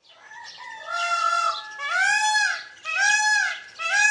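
An animal call, a loud pitched cry that rises and falls, repeated about once a second.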